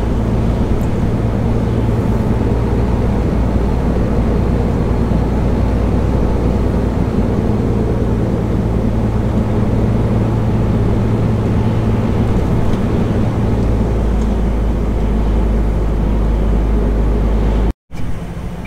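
MAN TGX semi-truck driving on the road: a steady, loud, low diesel engine drone with road noise, heard from inside the cab. The engine note shifts about three-quarters of the way through, and the sound cuts out for a moment near the end.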